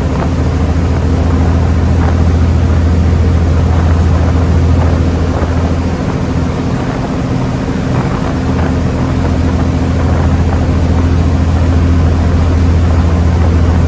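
Engine of the passenger ferry New Kasaoka running under way, a steady low drone heard on board, with rushing water and wind noise over it.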